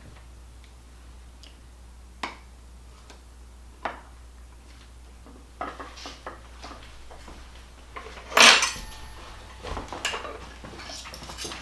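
Metal serving utensils clinking against a glass baking dish and a ceramic plate as a piece of cake is cut and served. Scattered single clinks, a small cluster about six seconds in, and the loudest clatter about eight and a half seconds in, with a brief ring after it.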